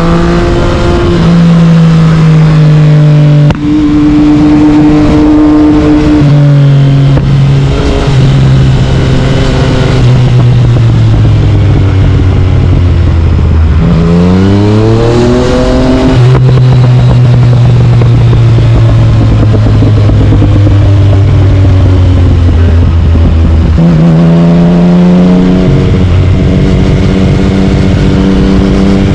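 Yamaha MT-09 inline-three engine through an Akrapovic carbon exhaust, running hard under a riding load. Its pitch holds, steps up and down with gear changes, and climbs in a sharp rev about 14 seconds in.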